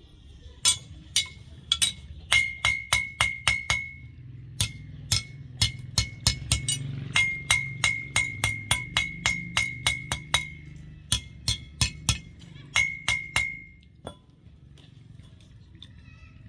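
Hammer blows on steel in quick runs of about four strikes a second, each with a short bright metallic ring. The blows stop shortly before the end.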